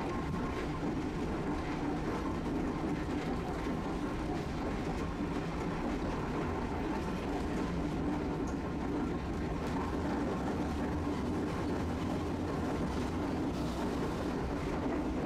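Tosaden streetcar running along its street track, heard from inside the car: a steady rumble of motors and wheels on the rails.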